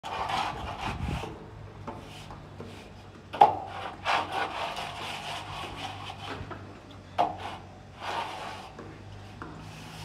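Scraping and rubbing strokes of a metal guide strip against a cement-plastered wall as it is set in place for plastering, with two sharp knocks about four seconds apart.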